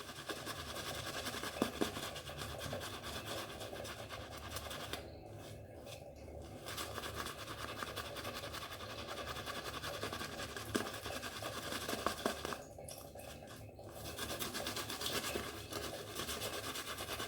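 Shaving brush working a firm shaving-soap lather over a stubbled face: a continuous scratchy, wet brushing, pausing twice for about a second as the brush is lifted.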